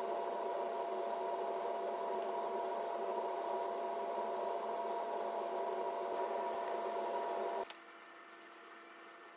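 A small motor whirring steadily at a constant pitch, which cuts off abruptly about seven and a half seconds in, leaving a faint hum.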